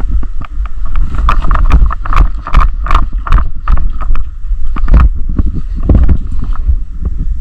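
A heavy low rumble of wind and movement on a body-worn action camera's microphone, with irregular clicks and knocks several times a second.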